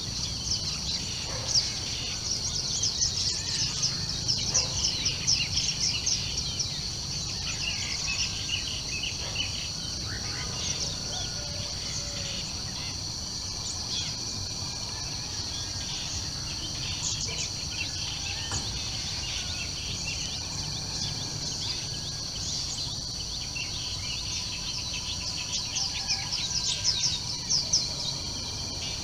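Morning birdsong: many small birds chirping and calling over a steady high-pitched insect drone. A low steady rumble runs underneath.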